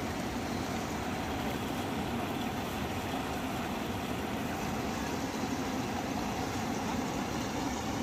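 Narmada river rapids rushing over rocks, a steady churning water noise.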